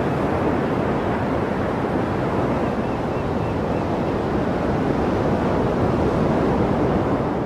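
Gale-force wind buffeting the microphone over heavy surf, a steady dense rush of noise with no let-up.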